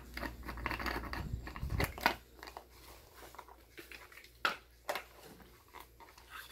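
Scattered small clicks, taps and rustles of hands handling small objects, a dark piece and a short metal tube. The sharpest click comes about four and a half seconds in.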